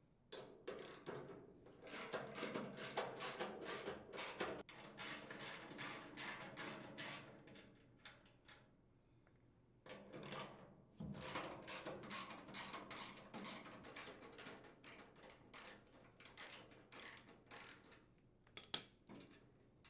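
Ratchet wrench with a half-inch socket clicking rapidly as it unthreads mounting nuts, in two long runs of fast clicks with sparser clicking between and after. A single sharp knock near the end.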